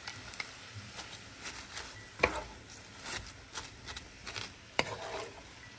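Wooden spoon stirring shredded cabbage in a frying pan, with irregular scrapes and knocks against the pan. The sharpest knocks come about two seconds in and again near five seconds.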